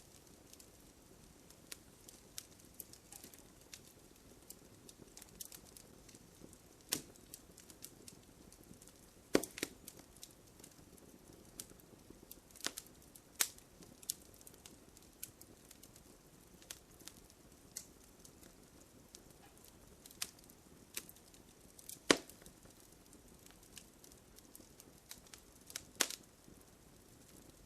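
Campfire crackling: irregular sharp pops and snaps of burning wood, a few louder cracks among many small ones, over a soft low hiss of flames.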